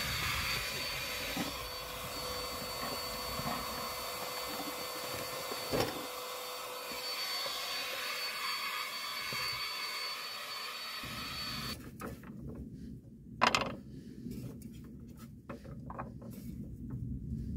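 Handheld vacuum cleaner running steadily with a high whine, switched off about twelve seconds in. After it stops come a few light knocks and clinks, one of them louder.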